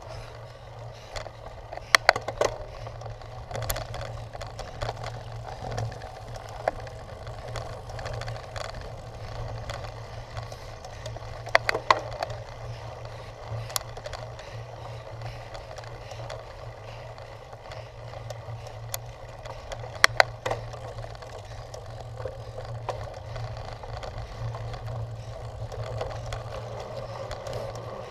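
Cyclocross bike being ridden over rough ground: steady rolling and wind noise, broken three times by sharp rattling clacks of the bike jolting.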